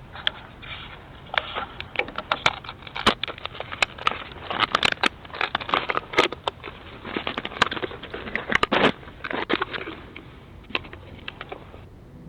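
Irregular scraping, clicking and crackling close on a doorbell camera's own microphone as a man tampers with the camera, trying to pry it off its mount.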